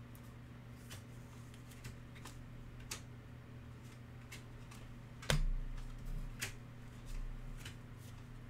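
Trading cards being handled: a card slid into a rigid plastic top loader, then a stack of cards flicked through, giving scattered light clicks and taps with one sharper knock about five seconds in. A steady low hum runs underneath.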